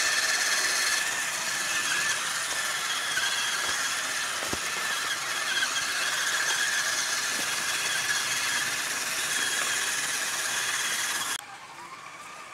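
Electric scale RC off-road car's motor and gears whining steadily, with a high, slightly wavering tone over a hiss. It cuts off abruptly about eleven seconds in, leaving much quieter outdoor sound.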